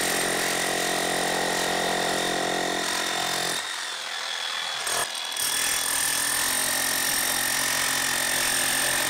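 Corded electric demolition hammer running steadily as it breaks into hard, stony ground, with a short break about five seconds in.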